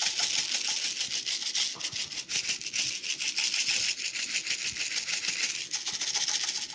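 Salt grinder being twisted, crunching coarse sea salt crystals in a continuous grainy rasp of rapid fine clicks.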